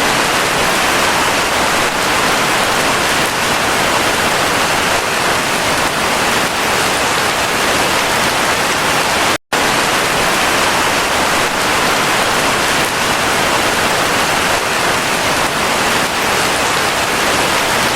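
Heavy rain falling steadily, an even dense hiss. It cuts out for a split second about halfway through, then carries on unchanged.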